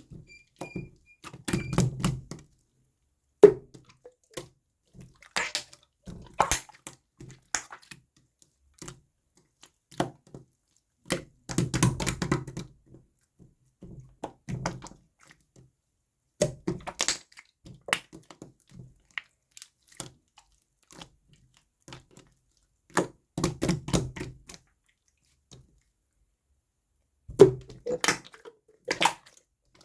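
Slime being squished, pressed and poked by hand: irregular clusters of sticky clicks, small pops and soft squelches, with short quiet gaps between handfuls.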